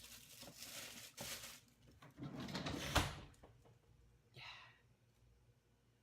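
Plastic bag of vegetables rustling as it is put into a refrigerator, then the refrigerator sliding shut with a thump about three seconds in, followed by a few faint clicks.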